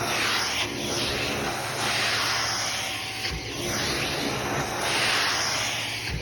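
Electric vacuum cleaner running steadily, a loud rushing hiss whose pitch and strength swell and ease every second and a half or so.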